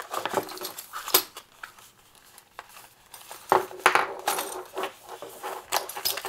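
Unboxing handling noise: a cardboard packing insert being pulled out and handled, with scattered light clicks and clinks of small hard parts. The clicks are busiest about three and a half to four and a half seconds in.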